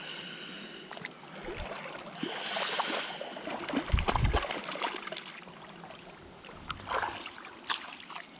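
Creek water running and splashing, with small clicks and knocks and a brief low bump about four seconds in.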